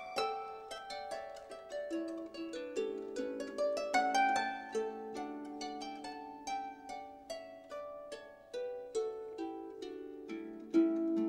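Instrumental background music: a gentle melody of plucked-string notes in quick succession, each note struck and then fading.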